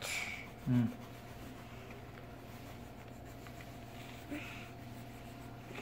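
Colored pencil scratching faintly on paper as a child shades in with it. A short, low voice sound comes about a second in.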